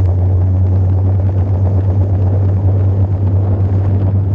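Small boat's outboard motor running steadily, a constant low drone with rushing wind noise over it, as the boat travels across the lake.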